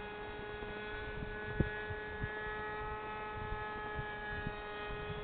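A steady hum at one unchanging pitch with overtones, and a faint click about a second and a half in.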